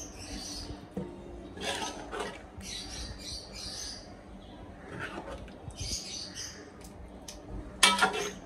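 A steel ladle scooping thick chicken masala gravy out of one steel pot and into another: wet scooping and scraping of the ladle against the pot's sides, with a few sharp metal clinks near the end.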